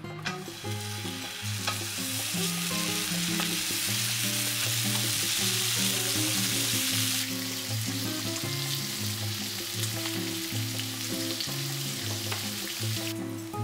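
Pancake batter and bacon frying in hot buttered pans, a steady sizzle that eases a little about seven seconds in and fades near the end, with background music playing throughout.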